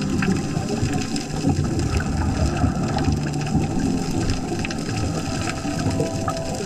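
Water rushing and churning steadily, with a low hum underneath.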